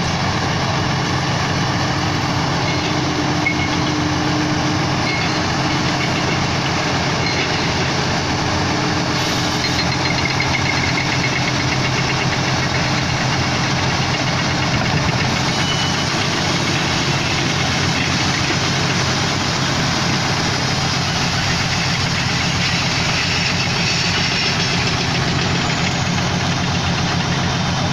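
Heavy diesel engines idling steadily, a low, even engine note that runs on without a break: a self-loader truck and a tracked excavator at work.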